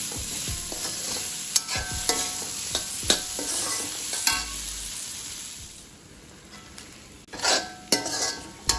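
Slotted steel spatula stirring and smashing potato filling in an aluminium kadai, scraping and tapping against the pan over a sizzle of hot oil. The sizzle dies down about five seconds in, and a few louder scrapes come near the end.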